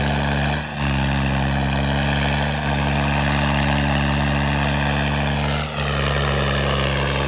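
Diesel tractor engine running hard and steady under heavy pulling load in a tractor tug-of-war, dipping briefly a few times and sagging slightly in pitch about five seconds in.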